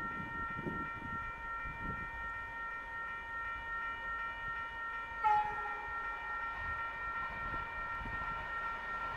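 A CP Alfa Pendular tilting train's horn sounds one long, steady note as the train approaches. About five seconds in, a click and a short, lower, slightly falling note cut in briefly over it.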